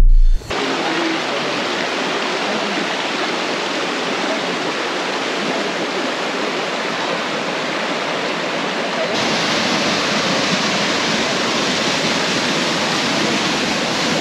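Water rushing over rocks in a shallow stream, a steady hiss; about nine seconds in it changes abruptly to the slightly louder rush of a small waterfall.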